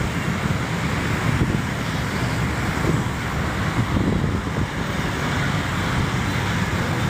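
Steady low rumble and rushing noise of a moving vehicle, heard from on board, with wind on the microphone.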